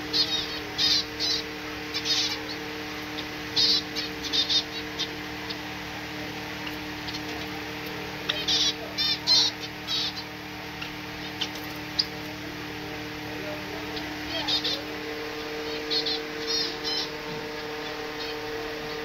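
Small caged finches chirping in short clusters of high calls every few seconds, over a steady low hum.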